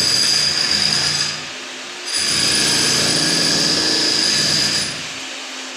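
An electric power tool runs in two bursts, the first about a second long and the second about three seconds, each with a steady high whine. A lower steady hum continues between them.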